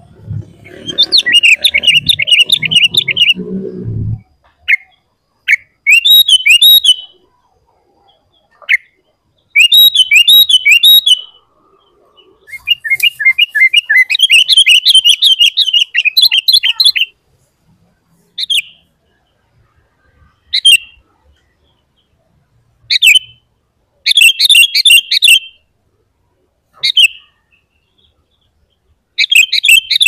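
Sooty-headed bulbul (kutilang) singing in bursts of quick, bright chirped phrases. The longest burst comes about halfway through, with shorter single calls and gaps after it. A low rumble sounds under the first few seconds of song.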